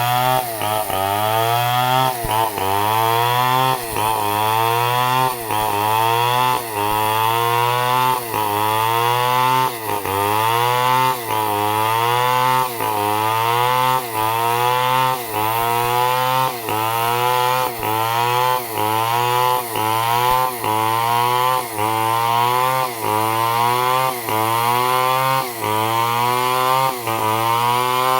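Stihl MS 250 two-stroke chainsaw cutting a log lengthwise into planks at high revs. Its engine pitch dips under load and recovers in an even rhythm about once a second.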